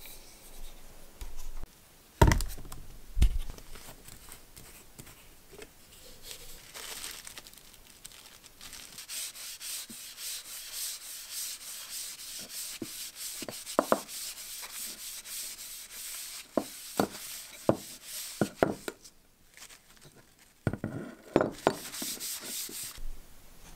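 Cloth rubbed rapidly back and forth along a sanded wooden hammer handle, a dense swishing with scattered sharp taps. Two loud knocks come about two and three seconds in.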